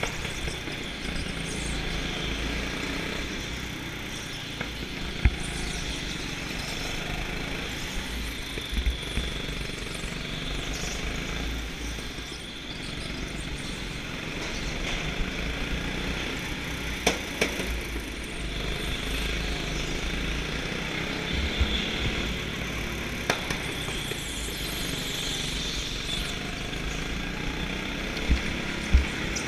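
Onboard sound of a go-kart driven at speed: steady engine and tyre noise, with a few sharp knocks.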